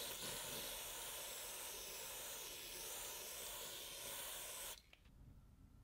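A steady hiss that starts suddenly and cuts off suddenly near the end, lasting about five seconds.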